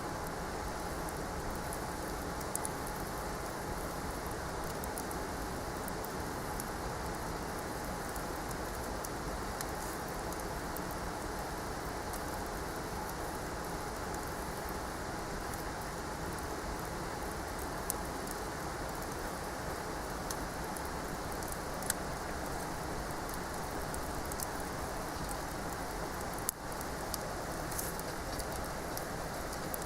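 Wood campfire burning: a steady hiss with many small crackles and a few louder pops scattered through it.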